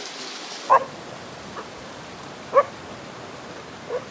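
Steady rush of running water from a hot-spring cascade. Four short, high cries spread over it are the loudest sounds, each one dropping in pitch.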